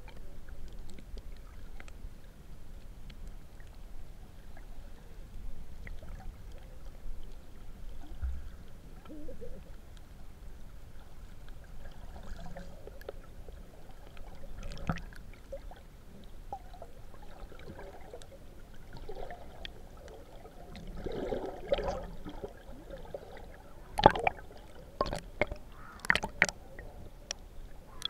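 Muffled underwater sound picked up through a waterproof action camera: a low steady rumble of moving water with faint scattered clicks and gurgles. In the last few seconds there is a run of sharp, loud knocks and splashes as the camera churns up near the surface.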